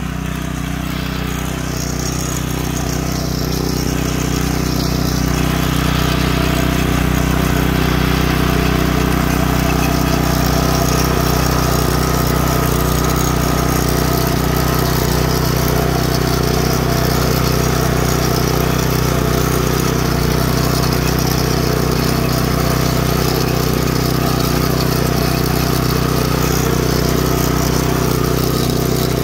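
Yard Machines 5 hp tiller's small single-cylinder gas engine running steadily under load while its tines churn through soil. It grows louder over the first several seconds, then holds steady.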